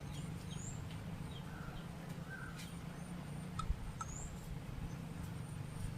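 Small birds chirping in short rising notes, several times, over a steady low hum, with a few faint sharp clicks.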